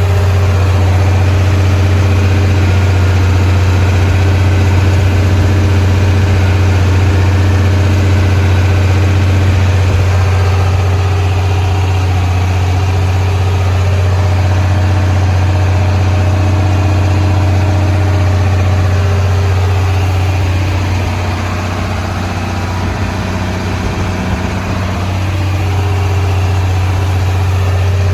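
Farm machine's engine running steadily with a deep, even hum, easing off slightly about three quarters of the way through before picking back up.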